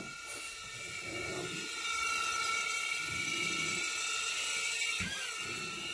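Small indoor quadcopter drone's ducted propellers whirring with a steady high whine, the pitch dipping and recovering with a knock about five seconds in.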